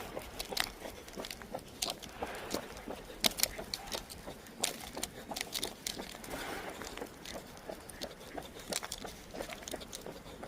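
A dog's paws and claws pattering and tapping in quick, irregular steps while it runs, with footsteps mixed in.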